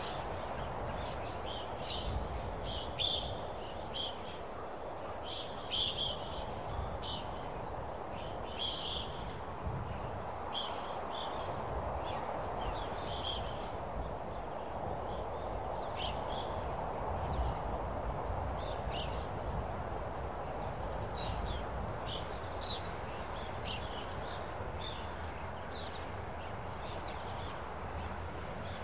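Open-country outdoor ambience: a steady soft rushing background with scattered short, high bird chirps, frequent in the first third and sparser after.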